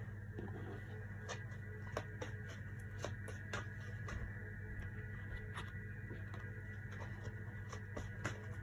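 Tarot cards being shuffled by hand: a run of soft, irregular card clicks and flicks. Underneath is a steady drone of meditation music.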